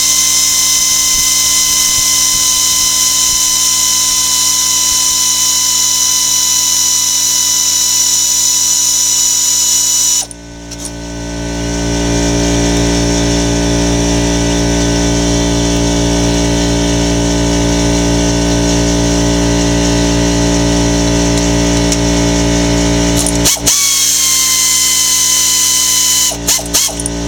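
A small electric motor, of the power-tool kind, whines steadily at a high pitch. About ten seconds in it cuts out, and a lower steady hum rises in its place. The whine returns briefly near the end.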